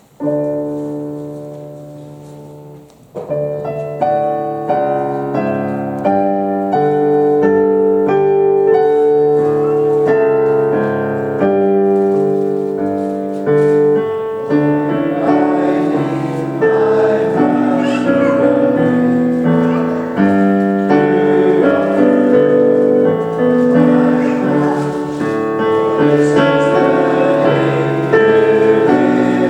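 Piano playing the introduction to a choir's hymn: one chord struck and left to ring for about three seconds, then the piano plays on in steady chords and moving notes.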